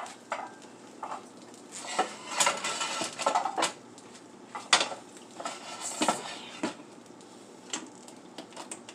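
Kitchen utensils and cookware knocking and clinking: an irregular clatter of metal and dish knocks, busiest about two to three and a half seconds in.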